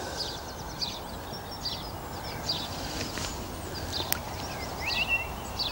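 Birdsong: a song thrush singing close by, its short repeated phrases mixed with the chirps of a few other small birds.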